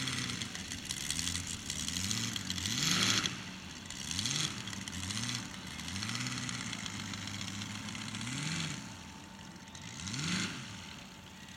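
Seidel Star 250B-7 seven-cylinder radial engine of a 1:3 scale Wilga model, running near idle and blipped repeatedly, its pitch rising and falling about seven times as the model taxis on grass. The biggest rev-ups come about three seconds in and near the end.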